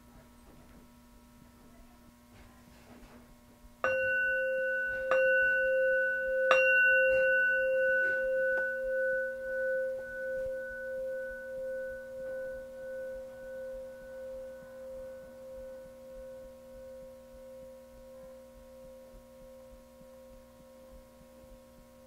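Buddhist altar bell (rin) struck three times about a second and a half apart, about four seconds in. It rings on in a clear tone that fades slowly with a wavering beat. A faint steady hum lies underneath.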